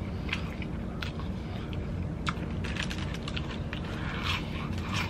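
Close-miked chewing and crunching of a crispy onion ring: many short crackly bites and clicks, more frequent in the second half, over a steady low hum.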